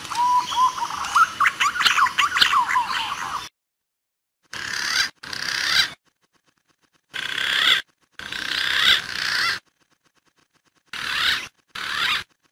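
Green pigeon (punai) calls on a bird-trapping lure track: quick wavering whistles that glide up and down, busy and mixed with clicks for the first three seconds or so. Then three pairs of short whistling bursts follow, each cut off abruptly into dead silence.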